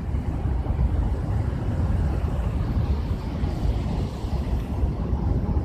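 Steady low rumble of outdoor street noise and wind on a handheld phone's microphone.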